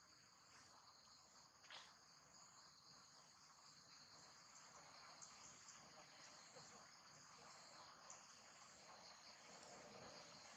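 Faint, steady high-pitched chorus of insects, with one soft click about two seconds in.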